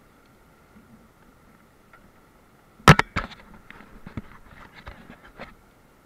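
A sharp, loud knock about halfway through, then a run of smaller clicks and taps: river water splashing onto an action camera's waterproof housing, with the rushing river only faint through the case.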